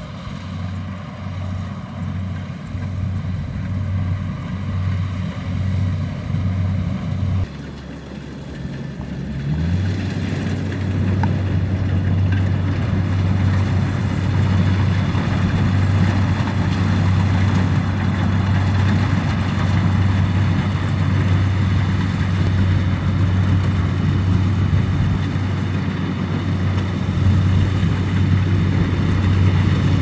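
Kubota rice combine harvester's diesel engine and threshing machinery running steadily as it cuts rice, a deep hum with mechanical noise above it. The sound grows louder as the machine comes closer, drops for about two seconds roughly a quarter of the way in, then comes back louder and stays steady.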